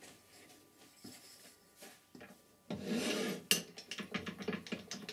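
Turned wooden pieces being handled and fitted together by hand on a stopped lathe. About halfway through comes a rubbing, scraping rustle, then a sharp knock, then a quick run of small taps and scrapes as the wooden lid on its metal chuck is pressed and turned against the blank's face.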